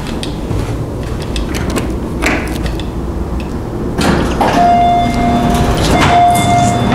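Apartment elevator: a few light clicks, then about four seconds in the steel doors slide, and two steady electronic beeps sound, a longer one then a shorter one.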